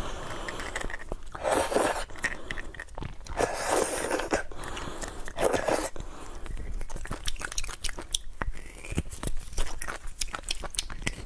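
Close-miked eating sounds of braised beef bone marrow: three longer, wet mouth sounds in the first six seconds, then a quick run of smacking chewing clicks.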